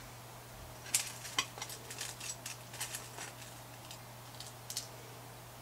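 Pinning fabric by hand: a string of small, irregular clicks and scrapes as pins are handled and pushed through the jersey, lasting about four seconds.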